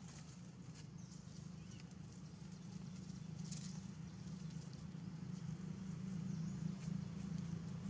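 Faint rustling and light ticks of baby monkeys moving over dry leaves and roots, over a steady low hum.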